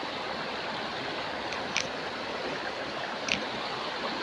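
Steady rushing noise, with two short high chirps, one near the middle and one about three seconds in.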